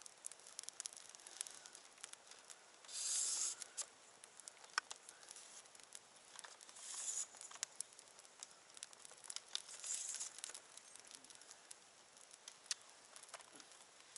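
Campfire of sticks and a cardboard box crackling, with sharp pops scattered throughout. There are three short hissing rushes, about three, seven and ten seconds in.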